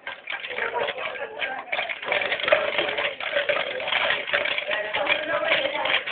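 Ice cubes rattling rapidly inside a cocktail shaker as it is shaken hard.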